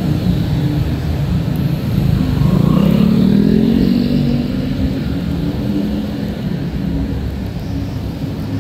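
Road traffic: a steady low rumble of car engines, with one vehicle passing close about two to four seconds in, its engine note rising and then falling away.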